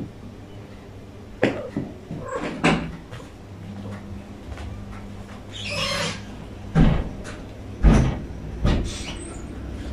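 Domestic long-haired cats moving about on a carpeted floor, with a few short cat sounds and about five sharp knocks or thumps, the loudest near the end.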